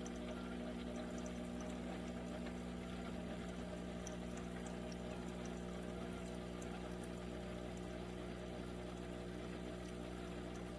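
Cuisinart single-serve pod coffee maker brewing: its water pump running with a steady hum while coffee pours into the cup with a faint crackle.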